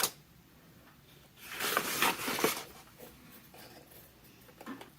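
A child writing a number on a paper worksheet: a scratchy stroke of the writing tool across the paper lasting a little over a second, followed by a few faint scrapes.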